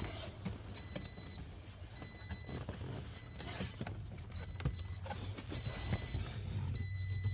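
Toyota RAV4's warning chime beeping steadily, about one high beep a second, each lasting about half a second, with scattered clicks and knocks of hands working on the car's interior.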